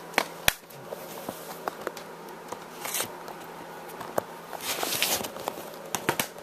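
Plastic Blu-ray cases being handled, making a series of sharp clicks and taps, with brief rustling about three seconds in and again around five seconds in.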